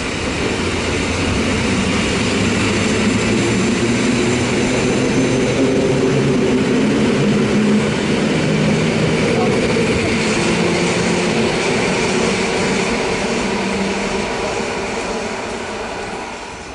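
SKM electric multiple unit pulling away from the platform, its electric traction motors whining and rising in pitch as it gathers speed, with wheel and rail noise, then fading as it moves off.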